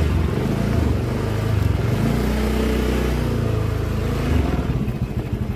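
Small motorcycle engine running at low speed, its pitch rising and falling with the throttle, then dropping to a pulsing idle near the end.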